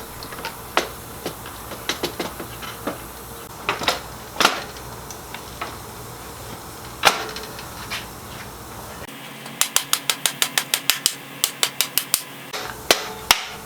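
Scattered metal knocks and clunks as a Kawasaki KX250 engine is shifted into the frame, then a quick even run of about fifteen hammer taps, about five a second, driving the swingarm pivot bolt through the engine mounts.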